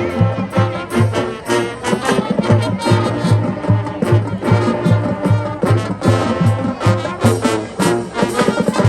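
Marching band playing: loud brass chords over a steady beat of low drum hits.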